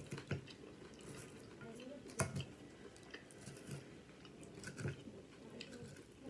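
Close-up chewing and crunching of crispy chicken salad, with scattered sharp crunches; the loudest comes about two seconds in.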